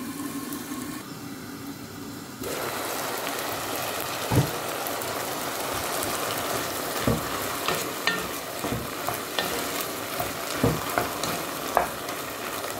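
Cubed chicken fillet frying with onion, garlic and turmeric in a nonstick pot, sizzling steadily. The sizzle is muffled at first and grows suddenly louder about two and a half seconds in. A wooden spoon stirs the chicken, knocking against the pot a few times.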